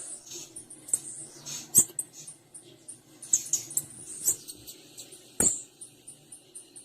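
Female blue-black grassquit (tiziu) calling: a run of short, high-pitched chips repeated at an irregular pace, with a couple of sharp knocks among them.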